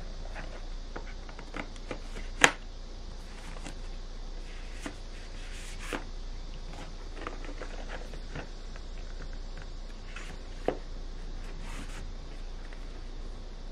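Hands handling a metal Blu-ray steelbook and its cardboard slipcase and booklet: scattered light taps, slides and rustles, with a sharp tap about two and a half seconds in and another later on. A steady hiss and low hum lie underneath.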